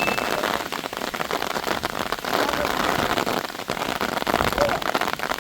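Heavy rain falling: a dense, steady patter of drops.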